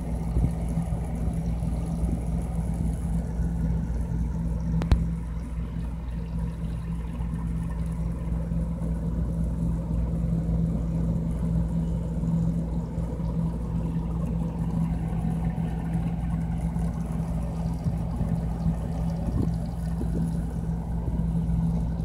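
Refrigerator compressor running with a steady low hum, a high-pitched ring over it that fades a few seconds in, and one sharp click about five seconds in. The high-pitched ringing is the sign of a compressor that has gone bad.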